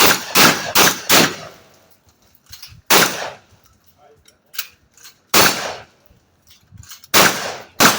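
Shotgun firing in a timed string: four quick shots about two and a half a second, then single shots spaced a couple of seconds apart, and two more close together near the end. Faint clicks and knocks fall in the gaps.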